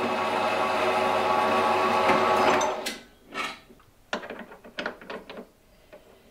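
Metal-cutting bandsaw running steadily, cutting a round steel bar, for nearly three seconds before it stops. A run of light metallic clicks and knocks follows as the bar is handled at a lathe chuck.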